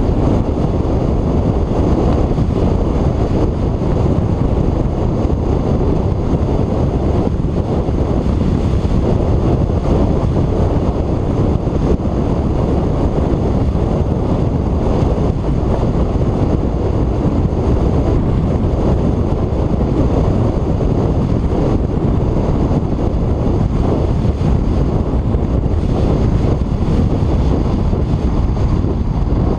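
Wind buffeting the microphone of a hood-mounted GoPro on a moving car, mixed with the car's road noise: a steady, low rumbling rush that does not let up.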